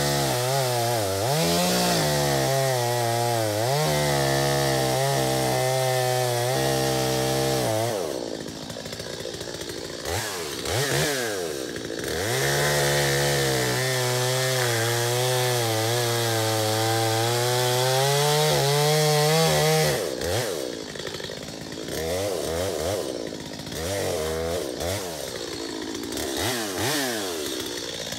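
Stihl MS 250 two-stroke chainsaw cutting into the base of a standing dead white elm to fell it. It runs at full throttle for about eight seconds, drops off, and revs back up for a second cut of about eight seconds. Near the end it runs at lower revs with short throttle blips.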